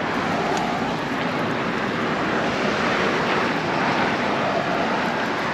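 Road traffic passing on a highway bridge: a steady rushing noise that swells slightly near the middle.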